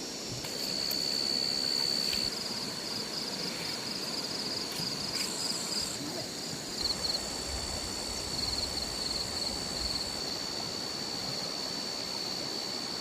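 A night insect, cricket-like, trilling steadily at a high pitch, at times breaking into rapid pulses, over the steady rush of a small stream's running water.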